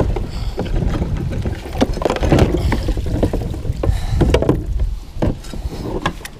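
Kayak pedal drive knocking and clunking against its mount as it is hauled up out of the hull, several sharp knocks over a few seconds. Underneath is a steady low rumble of moving river water and wind on the microphone, fading near the end.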